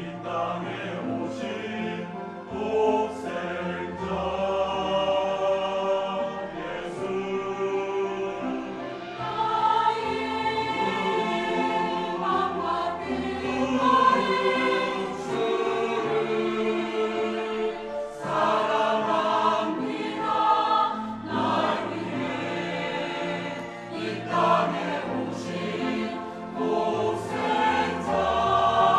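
Church choir singing a sacred anthem in long, held phrases.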